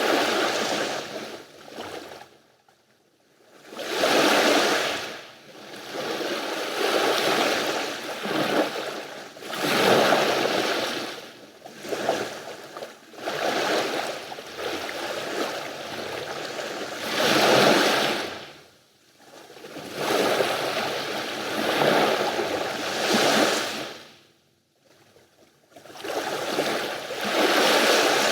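Mediterranean sea waves washing onto the shore, each surge swelling and fading away every few seconds, with short near-silent lulls between some of them.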